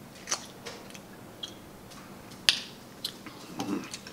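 Scattered small clicks and cracks of king crab leg shells being broken open by hand, with one sharp snap about two and a half seconds in.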